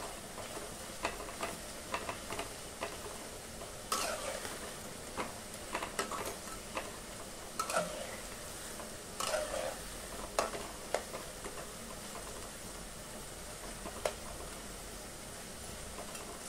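Cabbage and onion pakoras deep-frying in hot oil in a metal kadai, a steady sizzle, with a metal spatula scraping and tapping against the pan as the pakoras are turned over, the taps thinning out after about eleven seconds.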